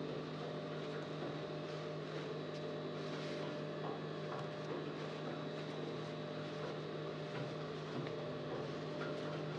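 Steady electric motor hum, with the soft rustle of fabric being smoothed and turned over by hand.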